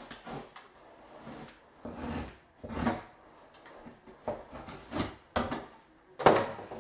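Mineral wool insulation being handled and pressed between wooden floor joists: irregular rustling and scrunching with short knocks and scrapes on the boards, the loudest a sharp knock near the end.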